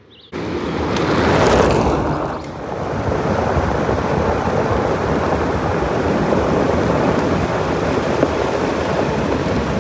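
Loud rushing wind and road noise from moving along a gravel road, starting suddenly and then holding steady, with a brief dip a couple of seconds in.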